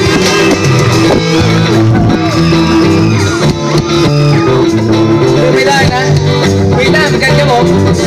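Live rock band playing loudly: electric guitars, bass and drums with a singer, recorded with low sound quality.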